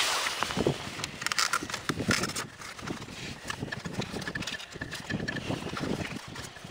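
Handling noise: rustling with scattered light clicks and knocks as a battery pack is slid into the battery bay of a foam RC plane's fuselage.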